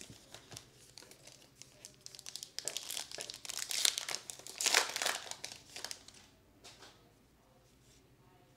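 Foil trading-card pack wrappers crinkling and tearing as the packs are opened and handled. The crinkling is loudest in a few bursts in the middle, then drops to faint card handling near the end.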